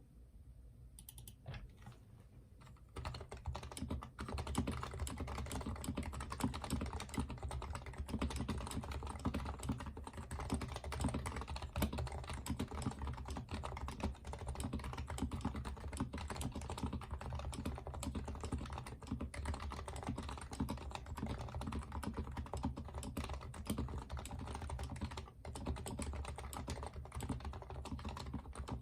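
Typing on an HHKB Professional Hybrid Type-S keyboard with its quiet Type-S Topre switches. A few scattered keystrokes come first, then fast, continuous typing from about three seconds in, with a brief pause near the end.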